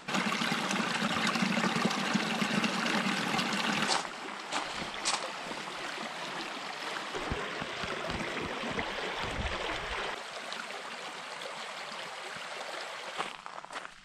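Creek water running over a rock bed: a steady rushing that is louder for the first four seconds, then softer, with a few low thuds partway through.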